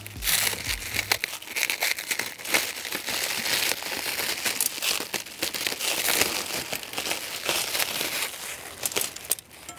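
Clear plastic shrink wrap crinkling as it is pulled and peeled off antenna parts by hand, a dense run of sharp crackles.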